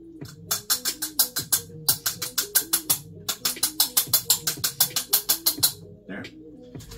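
Quick rattling taps, about seven a second, in three bursts with short pauses, from rinsed noodles being shaken in a strainer at the sink to drain them. Background music plays under them.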